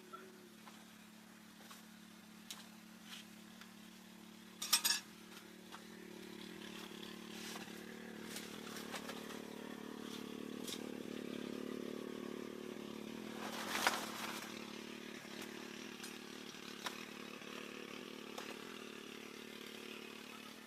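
A small engine running steadily at an even pitch, growing a little louder partway through, with a couple of sharp knocks or clinks.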